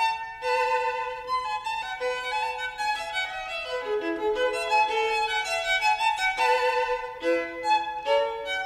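Violin music: a melodic line of changing short and held notes, at times two notes sounding together.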